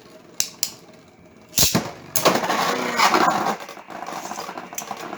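Beyblade battle: two clicks of the launch, a sharp hit as the tops land in the plastic stadium, then a loud clattering clash as Geist Fafnir and a 3D-printed bey collide. The clash gives way to a lighter, rapid rattling of the tops spinning and scraping on the stadium floor.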